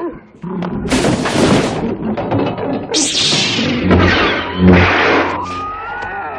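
Star Wars science-fiction sound effects: two long, loud noisy bursts over a steady low hum, then a single gliding tone near the end.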